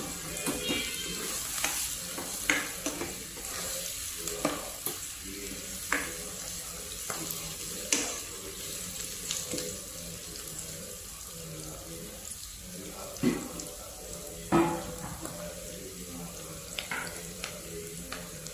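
Sliced onions, chillies and curry leaves sizzling in oil in a non-stick pan while a spatula stirs them, with sharp knocks and scrapes of the spatula against the pan every second or two, the loudest two about three-quarters of the way through.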